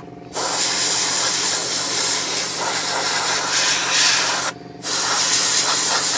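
Airbrush spraying at low air pressure, a gentle hiss as a light mist coat goes on. The trigger is let off twice, right at the start and briefly about four and a half seconds in. A steady low hum runs underneath throughout.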